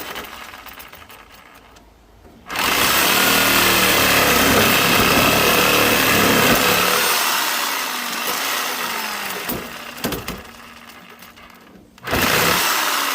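A handheld power tool's motor starts suddenly at full speed, runs for several seconds and then winds down, its pitch falling away. It starts up again near the end.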